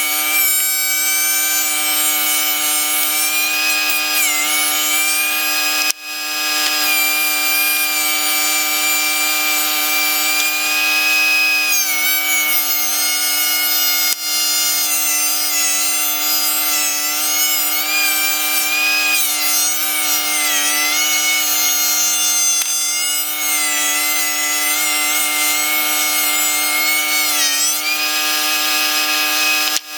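DeWalt 13-inch thickness planer running with a loud, steady whine, its pitch sagging and wavering several times as boards feed through and load the cutterhead. The sound breaks off for an instant twice, about six and fourteen seconds in.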